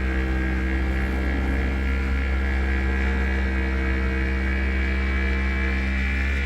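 Electric mechanical polisher's motor running at a steady speed: a constant hum with a higher whine over it.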